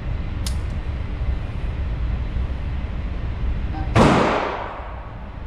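A single shot from a stainless Bond Arms two-shot derringer chambered in .327 Federal, about four seconds in, with a long echo trailing off the indoor range walls. A sharp click comes about half a second in, over a steady low rumble.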